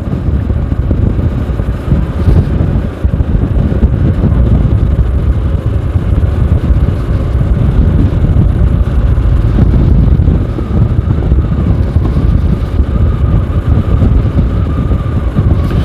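Moto Morini X-Cape 650's parallel-twin engine running steadily as the bike cruises, mixed with heavy wind rumble on the microphone.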